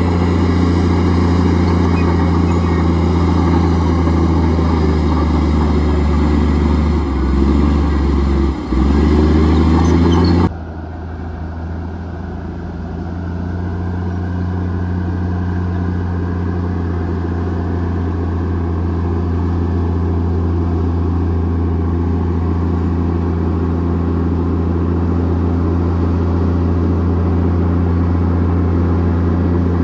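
Komatsu D58E bulldozer's diesel engine running steadily under load. Its pitch dips briefly about seven seconds in; a few seconds later the sound changes abruptly, goes quieter, and slowly builds back up.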